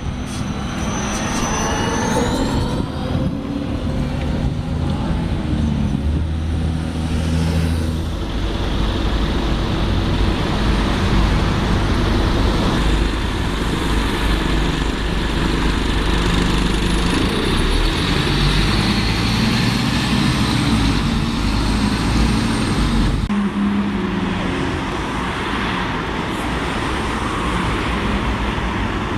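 Road traffic: heavy vehicle engines running and passing steadily, with a short rising whine about two seconds in.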